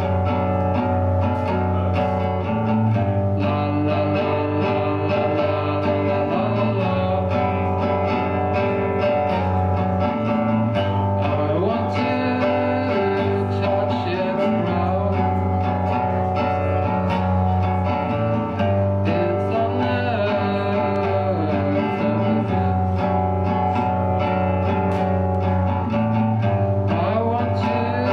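Live band music with guitars, bass and drums, and a man singing into the microphone.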